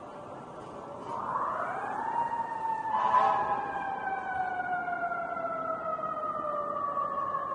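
Emergency vehicle siren rises in pitch over about a second, then winds slowly and steadily down. A brief louder blast comes about three seconds in.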